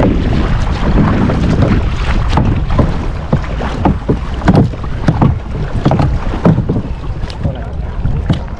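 Boat on open water: a steady low rumble with wind buffeting the microphone and frequent irregular short knocks and splashes.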